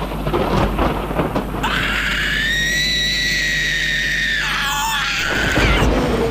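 A rumbling, thudding horror soundtrack, then a shrill, ghostly shriek that starts about one and a half seconds in, is held at a high pitch for about three seconds, and falls away in a downward wail.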